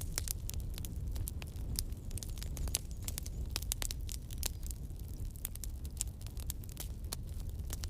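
Campfire burning: wood crackling and popping in many quick, irregular snaps over the low rumble of the flames.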